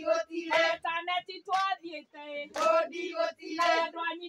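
A group of women singing a traditional Kikuyu song together, high voices holding steady notes, with a sharp hit about once a second.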